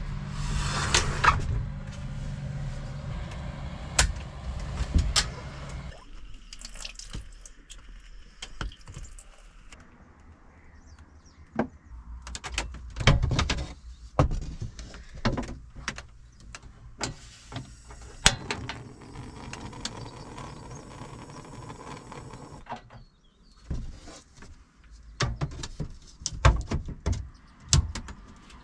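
Knocks, clicks and rubbing from the wooden fittings of a camper-van kitchen being handled, including a wooden cover board being laid over a two-burner gas stove. A steady low hum runs under the first few seconds.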